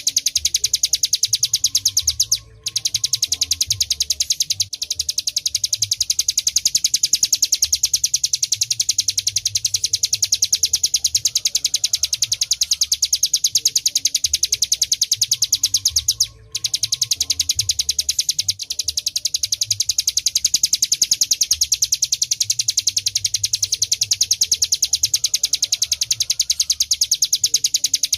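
Ciblek gunung, a prinia, singing a fast, continuous, high-pitched rattling trill of rapidly repeated notes. The trill breaks off briefly twice.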